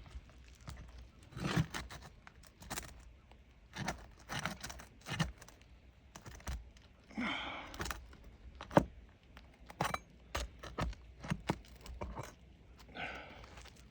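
Asphalt roof shingles being pried up and nails worked loose: irregular clicks, knocks and scrapes, with two longer tearing, scraping stretches about seven seconds in and near the end. The shingles are brittle and stuck down, so they tear as they are lifted.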